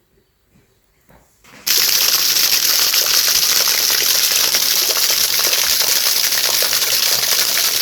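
Steady heavy rain, a dense hiss that starts abruptly about a second and a half in.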